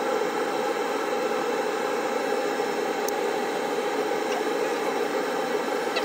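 Steady whirring noise of a laser engraving machine running while it marks a lighter, with one faint click about three seconds in.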